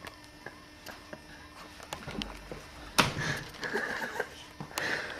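A single thump about three seconds in, as a boot is knocked against a sleeping person, with short breathy sniffs around it.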